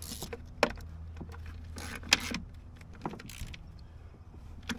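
Wrench work on metal bolts and fittings as they are snugged tight: a handful of separate clinks and knocks of tool on metal, over a steady low hum.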